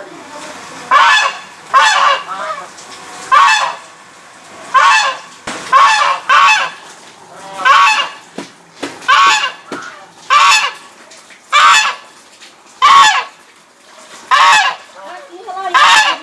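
Loud honking bird calls, a little over a dozen honks repeated roughly once a second.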